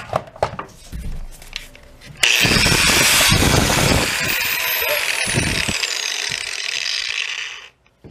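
Milwaukee corded angle grinder picked up with a few handling clicks, then switched on about two seconds in and run free for about five seconds before stopping near the end: a test run showing the spliced cord works.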